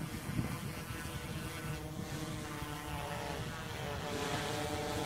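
DJI Inspire 1 quadcopter's rotors running in flight: a steady whine of several tones that shifts a little in pitch as it manoeuvres, over a low wind rumble on the microphone.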